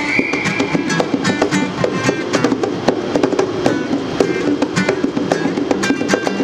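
Acoustic guitar strummed in a steady rhythm, with hand drums on a pair of bongos played along with it.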